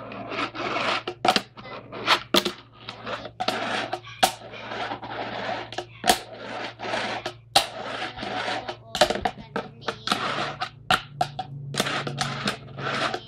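Packaging and wooden fingerboard ramps being handled while unboxing: rustling of foam and cardboard broken by many sharp knocks and clicks as pieces are moved and set down.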